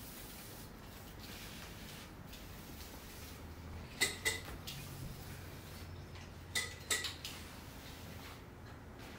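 Small sharp clicks from handling houseplants and their pots, two pairs about a third of a second apart, over a faint steady hum.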